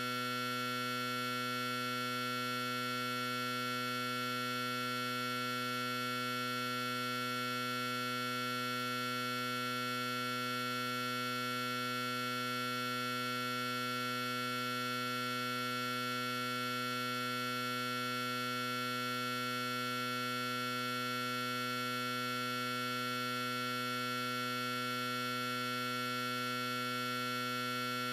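A steady, unchanging hum made of several held tones at an even level throughout.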